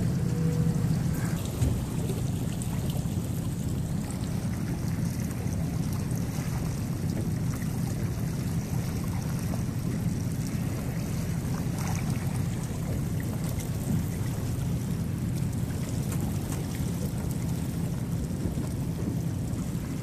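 Boat engine running steadily at low speed, a constant low hum, with wind noise on the microphone over it.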